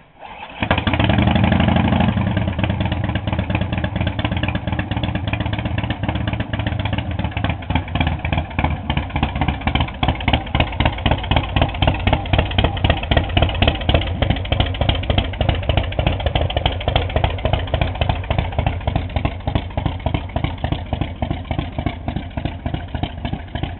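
Big Dog K-9 chopper's V-twin engine, through Vance & Hines exhaust pipes, fires up about half a second in, runs fast for a moment, then settles into a steady, lumpy, pulsing idle.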